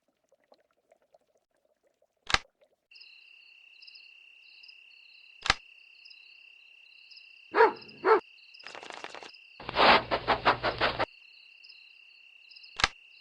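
Cartoon night-time sound effects: three sharp clicks, and from about three seconds in a steady chirping of crickets. In the middle come two short loud sounds, then a louder rapid rattling that lasts about a second.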